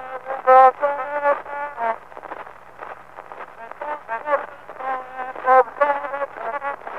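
A man chanting Kyrgyz epic verse, heard on an early wax-cylinder phonograph recording that sounds thin and cut off in the highs, with a faint steady hum underneath.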